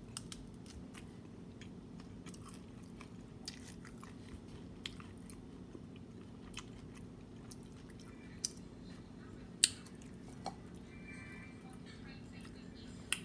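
Tacos being chewed close to the microphone, with scattered sharp crunches and mouth clicks, the loudest about two thirds of the way through, over a steady low hum.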